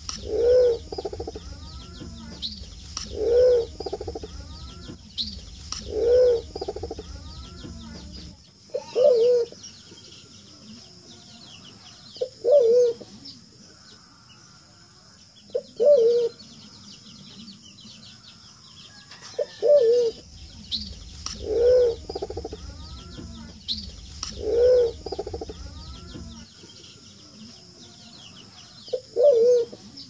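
Wild forest pigeon cooing: a short, low coo repeated about every three seconds, ten times in all, some of them a quick double note.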